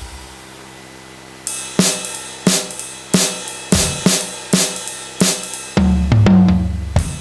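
Electronic drum kit sounds from a Carlsbro OKTO A percussion pad being played. After a short pause, a steady beat of hits about every 0.6 seconds with cymbal on top, then a run of deep tom hits near the end.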